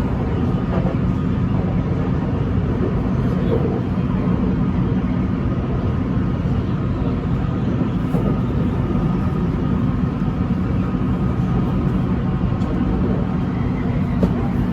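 Steady rumble and hum of a BTS Skytrain electric train, even in level throughout.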